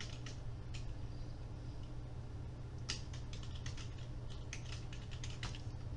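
Computer keyboard being typed on: a couple of key clicks near the start, then a quicker run of keystrokes from about three seconds in, over a low steady hum.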